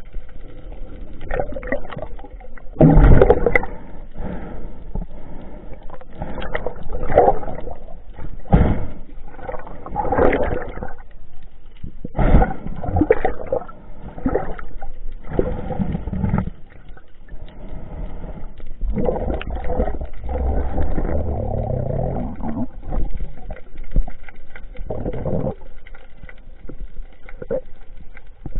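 Muffled water noise and bubbling picked up by a camera underwater, coming in irregular surges as a freediver moves and dives.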